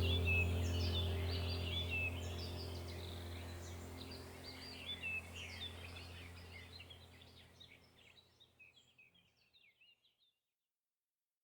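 Rainforest bird chorus: many overlapping short chirps and calls over a steady low hum, fading out to silence about eight seconds in.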